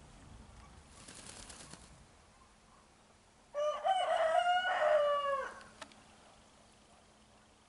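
A rooster crowing once, starting about three and a half seconds in: a crow of about two seconds that drops in pitch at the end.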